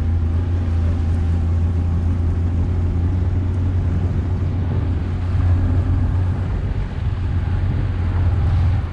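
Outboard motor running steadily as the small boat motors along, a constant low hum with hull and water noise over it.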